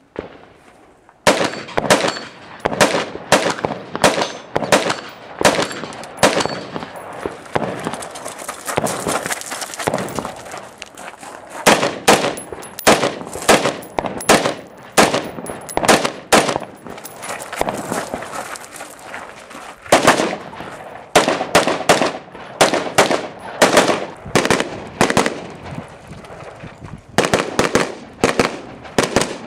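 JP Enterprises semi-automatic rifle firing fast strings of shots, several a second, broken by short pauses, with a short echo after each shot. The shooting starts about a second in.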